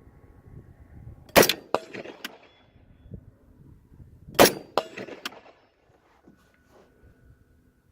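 Two rifle shots about three seconds apart, each followed by a couple of fainter sharp cracks that trail off.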